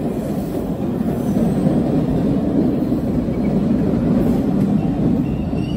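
MBTA subway train rolling along the platform, a steady low rumble of wheels and running gear.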